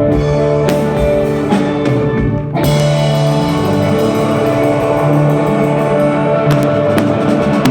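Band playing 1960s-style mod rock: held guitar chords over a drum kit, with a steady ticking cymbal beat and a cymbal crash about two and a half seconds in.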